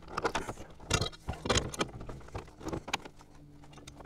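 A quick, irregular run of clicks, knocks and rattles from gear being handled at the back of a pickup truck as its tonneau cover is lifted, sped up in fast-forwarded footage.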